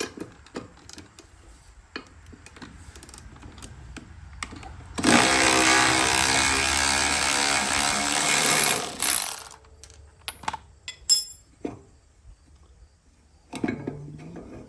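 A power tool's motor runs steadily for about four seconds while the old front caster wheel's axle bolt is undone, with metal tool clicks and clanks before and after.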